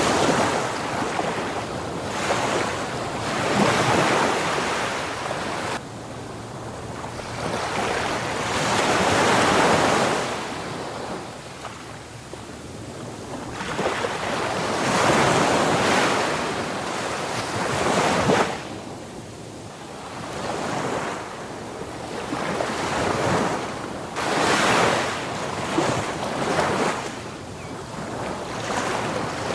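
Ocean waves breaking and washing up on a beach: a steady rush of surf that swells and falls back every few seconds.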